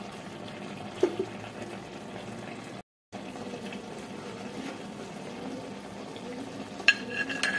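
Pot of rice simmering uncovered on a low flame, a steady watery hiss. Near the end come a few ringing clinks of dishes.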